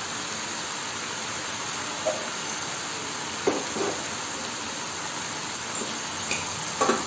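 Excess cooking water pooled in the middle of a kadhai of boiled cluster beans, bubbling and sizzling steadily as it boils off, with a few light knocks.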